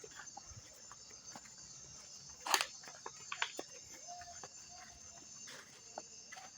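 Footsteps and scattered clicks and knocks while walking at night, with one sharper click about two and a half seconds in, over a steady high-pitched insect chorus.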